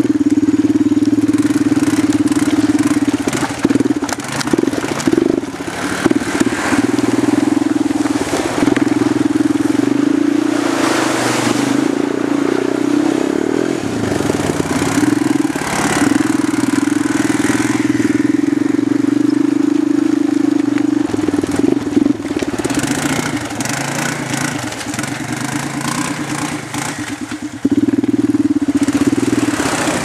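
ATV engine running steadily as the quad is ridden over a gravel river bar, its note wavering and dipping several times as the throttle eases and picks up.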